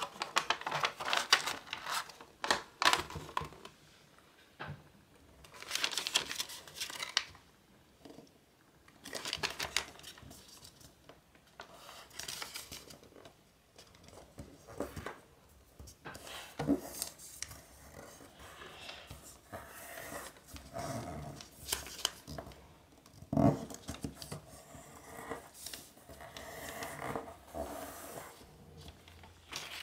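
A large sheet of origami paper rustling and crackling in repeated bursts as it is lifted, folded and creased by hand, with two short soft thumps in the second half.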